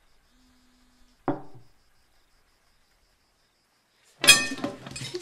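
A mobile phone vibrating on the table in two short buzzes, the second stopping about a second in. Then a single knock of a drinking glass set down on the table. Near the end a loud shouting voice breaks in.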